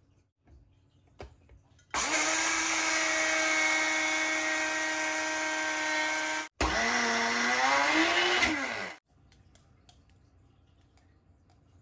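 Iwatani Millser electric mill grinding sesame seeds to powder. The motor runs for about four and a half seconds, stops briefly, then runs again for about two and a half seconds, its pitch shifting during the second run before it cuts off.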